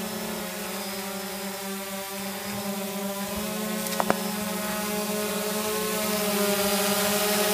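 DJI Phantom 2 quadcopter's four electric motors and propellers buzzing steadily as it hovers low, growing louder toward the end as it draws nearer. Two sharp clicks come close together about four seconds in.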